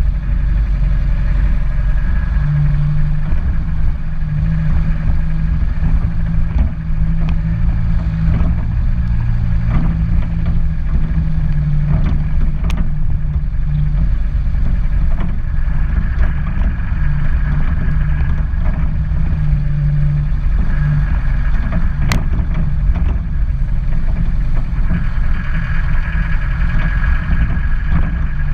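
A car's engine and tyre noise, driving steadily on a wet road, with a low hum throughout. A couple of brief sharp clicks come near the middle and later on.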